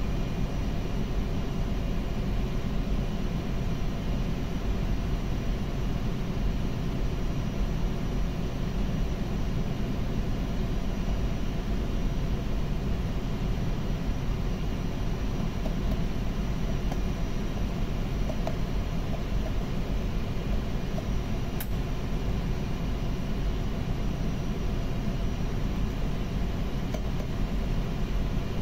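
Steady drone of running machinery with a few faint steady tones in it, unchanging throughout. A single faint click sounds about two-thirds of the way through.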